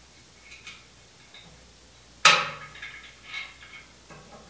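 A metal pin being fitted into a hydraulic cylinder's mount on a steel press frame. There is one sharp metallic clank about two seconds in, ringing briefly, then a few lighter metal clinks.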